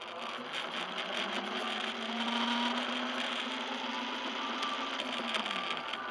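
Electric motor of an RC buggy whining as the car drives, heard up close from a camera mounted on the car. The whine rises in pitch about a second in, holds, and falls away near the end, over a steady hiss.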